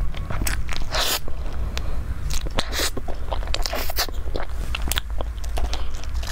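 Close-miked mouth sounds of eating a chocolate-topped layered cake: biting, chewing and crunching, with many short sharp wet clicks and crackles.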